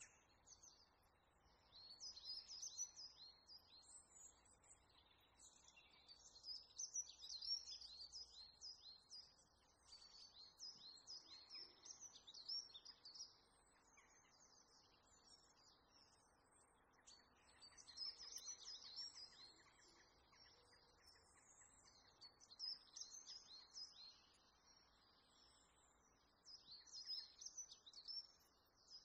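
Small birds chirping in quick runs of high, downward-sliding notes. The chirping comes in bursts every few seconds over a faint steady hiss.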